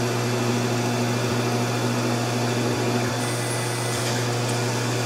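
Taig CNC mill running steadily: the spindle motor hums while the end mill cuts into a foam block and the table is driven along under the cutter.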